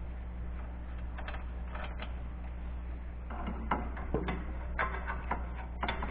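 Irregular light metallic clicks and taps from about three seconds in, as bolts and tools are handled at the exhaust manifold flange, over a steady low hum.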